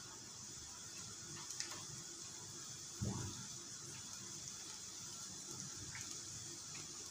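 Whole bell peppers being dropped into a pot of boiling water, with one plop falling in pitch about three seconds in and a few faint taps, over a steady hiss.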